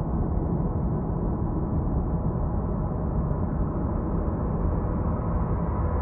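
Dark ambient drone music: a dense, steady low rumble with a few faint held tones above it and no beat or melody. A faint hiss creeps in near the end.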